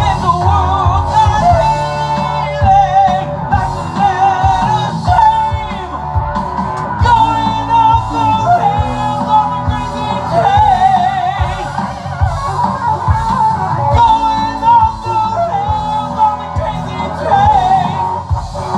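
Rock music: a singer's lead vocal, wavering with vibrato on held notes, over electric guitar, bass and a steady drum beat.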